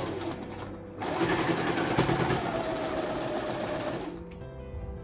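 Electric domestic sewing machine stitching through cloth: a short run at the start, then after a brief pause a steady run of about three seconds that stops about four seconds in.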